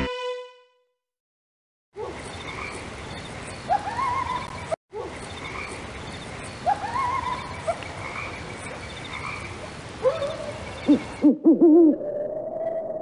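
A ringing music chord fades out, then after a second of silence a night-time ambience sound effect of owl hoots and croaking frogs over a hiss plays as a loop. Near the end it cuts to wavering tones that settle into a steady drone.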